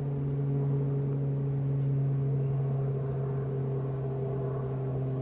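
A steady low machine hum with several evenly spaced overtones, holding one pitch throughout.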